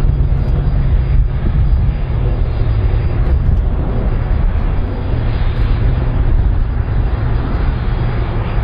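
Airbus A310-304 airliner's twin General Electric CF6 turbofans running as it rolls along the runway: a steady, loud low rumble with a hiss above it.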